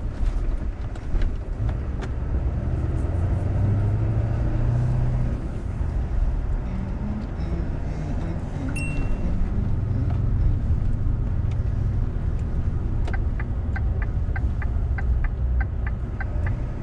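Inside the cab of a Scania lorry driving slowly, the diesel engine rumbles steadily and low. There is a brief high beep about nine seconds in, and a fast, even ticking starts about thirteen seconds in, the turn indicator as the lorry nears a junction.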